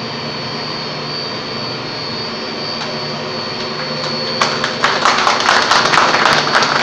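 Steady drone of machinery with a thin high whine, joined about four and a half seconds in by a group of people clapping.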